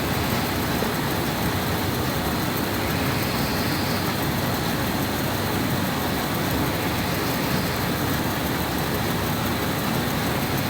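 A woman snoring in her sleep: low rumbling snores with slow swells a few seconds apart, over a steady hiss.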